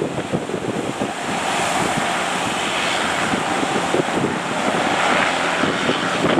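Strong wind buffeting the microphone over the wash of breaking surf, the surf swelling louder a couple of times.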